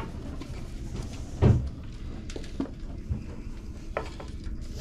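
Spice shakers handled over a pizza slice and set down: one thump about a second and a half in, then a few light knocks and clicks.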